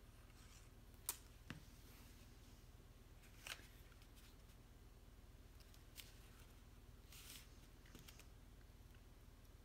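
Near silence with faint handling of cardstock: a few light taps and brief paper rustles as a glued paper pop-up card is folded and pressed flat by hand.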